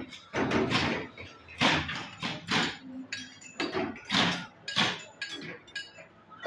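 Irregular clanking strikes of metal on metal, about one or two a second, some leaving a short metallic ring, as steel wire and mesh are worked.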